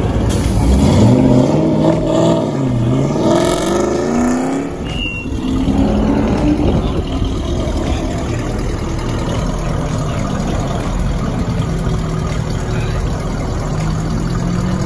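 Ford Mustangs revving as they pull away, the engine pitch rising and falling several times in the first few seconds, then running more steadily.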